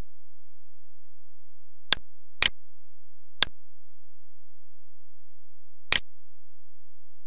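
Four single computer mouse clicks over a steady low hum. The first two come close together about two seconds in, and the last comes near the end.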